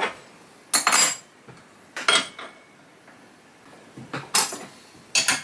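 Metal parts clinking and knocking in about five short, sharp bursts: a steel support strap and half-inch bolts being handled and fitted back onto the Ponsness Warren Autodrive's base.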